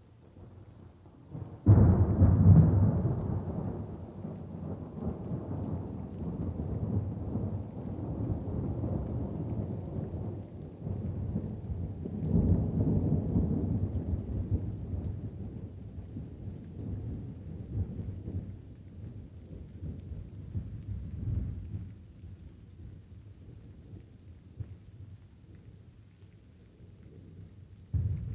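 Thunderstorm with light rain: a sudden loud thunderclap about two seconds in, followed by a long low rumble that swells again midway and dies down. Another clap starts at the very end.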